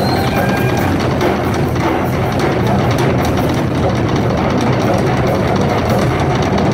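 Drum solo on a Ludwig rock drum kit: fast, dense strokes around the drums with the bass drum underneath, played without pause.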